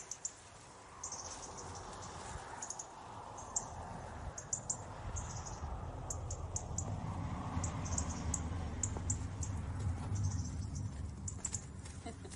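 Outdoor ambience: many short, high chirps and clicks scattered irregularly over a low rumble, which grows louder after about six seconds.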